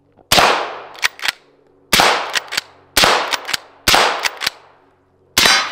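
Five single semi-automatic shots from an AR-style rifle, fired about a second apart, each cutting off quickly into a short trailing ring, with fainter sharp cracks in between.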